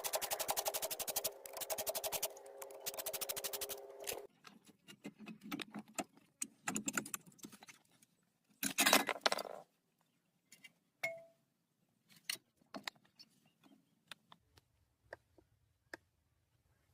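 A power tool rattling rapidly, which cuts off suddenly about four seconds in. Then metal tools and brake parts clink and click now and then, with one louder rattle near the middle.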